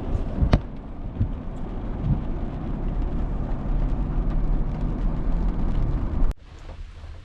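Car driving, with a steady low engine and road rumble and a sharp knock about half a second in.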